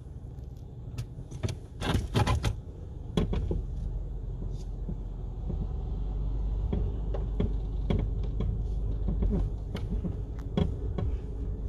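Car cabin: a quick cluster of clicks and knocks about two seconds in, then the car's engine and tyres rumbling steadily as it pulls forward out of an automatic car wash bay, with scattered small clicks.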